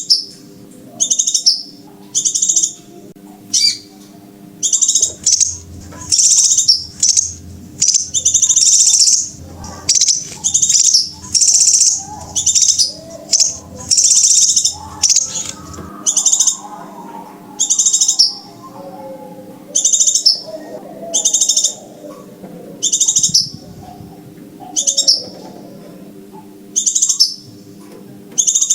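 Crimson sunbird calls: sharp high chirps repeated roughly once a second, crowding into longer, quicker runs through the middle.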